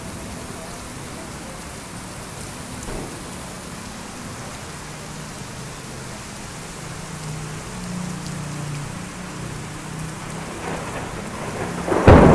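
Heavy rain falling steadily, with a low rumble building about halfway in, then a sudden loud clap of thunder near the end.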